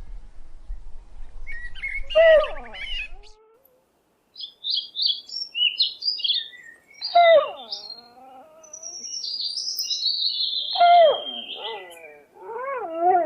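Four short pitched animal cries that fall or waver in pitch, alternating with runs of high, quick bird chirps.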